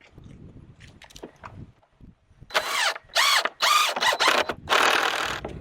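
Power drill driving screws into the wooden nest box, about five short runs in a row about halfway through, the motor whine rising and falling in pitch with each run. Light knocks of the boards being handled come before.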